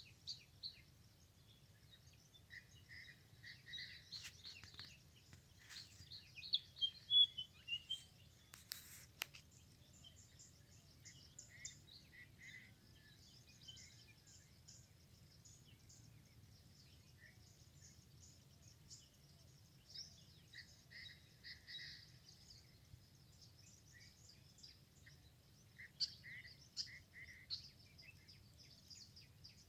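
Several birds chirping and calling in short, repeated notes over a steady low background rumble. A single sharp click about nine seconds in.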